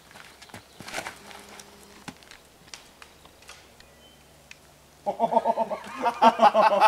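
Footsteps scuffing on the dirt tee during a disc golf throw, then several faint knocks as the disc strikes trees. About five seconds in, loud rhythmic laughter breaks out.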